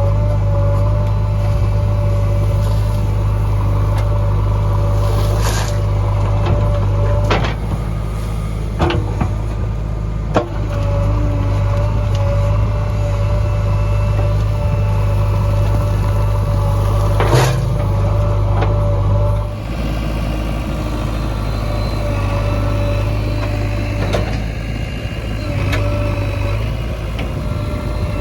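Heavy diesel engine of construction machinery running steadily with a constant low drone, broken by several sharp knocks and clanks.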